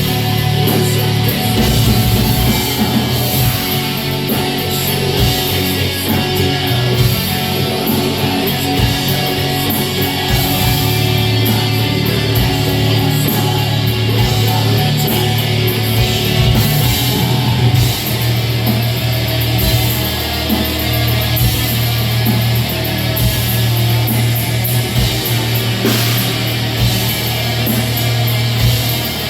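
Live black metal band playing loud through a venue PA: distorted guitars, bass and fast drumming, recorded on a phone.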